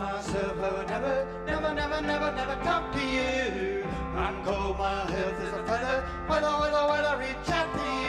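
Live band music: keyboards and synthesizers over a steady low bass, with a voice singing a gliding melody.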